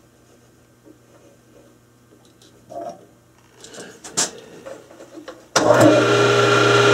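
A few light clicks and taps of metal being handled at a lathe chuck, then about five and a half seconds in a small lathe's motor switches on abruptly and runs with a steady hum.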